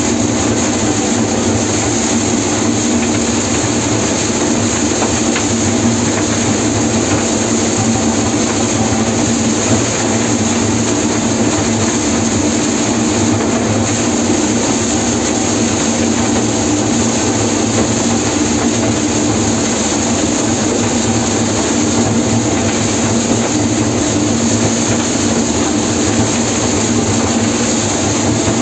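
John Deere 952 combine harvesting corn. Its engine and threshing machinery run at a steady working pace while the corn header feeds in the dry stalks, with a constant loud drone heard from the operator's seat.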